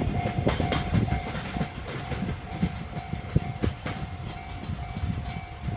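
Freight train wagons rolling slowly over a level crossing, their wheels knocking over the rail joints in an irregular clatter that thins out and fades toward the end. The crossing's warning bell rings steadily over it.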